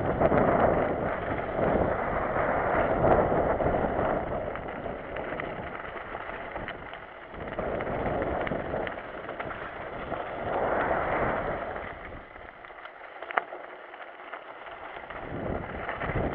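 Wind buffeting the microphone of a camera on a mountain bike riding down a rough trail, mixed with tyre rumble and the odd rattle or knock from the bike. It surges and eases, going quieter a few seconds before the end.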